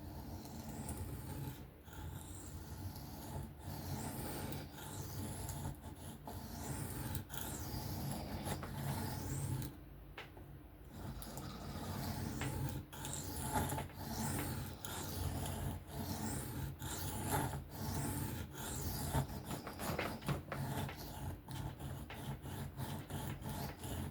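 Steel knife blade stroked freehand across an Atoma diamond sharpening plate: repeated rasping strokes, with a short pause about ten seconds in. The edge is being worked to raise a burr.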